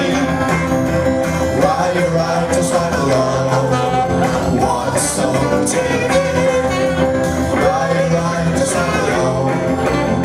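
Guitar-led band music playing steadily, with some singing in the mix.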